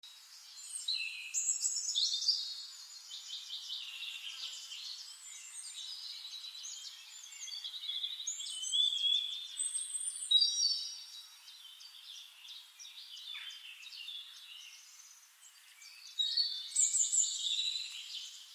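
Several small birds chirping and trilling in overlapping calls. They thin out about two-thirds of the way through and pick up again in a short burst near the end.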